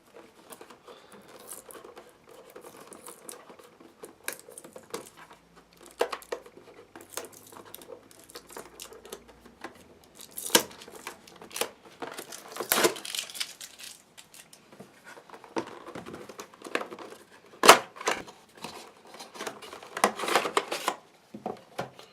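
Microphone packaging being opened by hand: irregular crinkling, rustling and tearing with scattered handling clicks, busier in the second half, the loudest a sharp click about three-quarters through.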